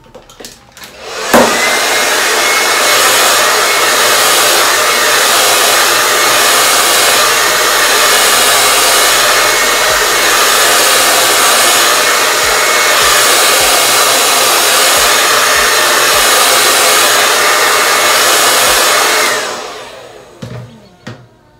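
Hand-held hair dryer switched on with a click about a second in, blowing steadily with a rush of air and a high whine, swelling and fading as it is waved back and forth, then switched off and winding down near the end. It is drying lace-wig glue along the hairline.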